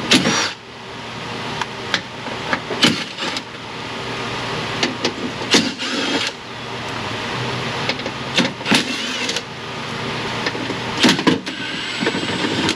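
Sharp metal clicks and knocks, about ten of them at irregular intervals, from unbolting a car door's window regulator and motor and working them out of the door, over a steady rushing background noise.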